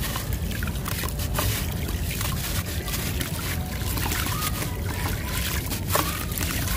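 A hand-formed sand-cement block dunked into a tub of water and crumbled by hand: water sloshes and trickles while gritty pieces crackle and patter into the water.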